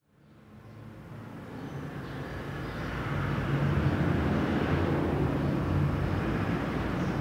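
Steady low rumble with a hiss over it, fading in from silence over the first three seconds or so and then holding level.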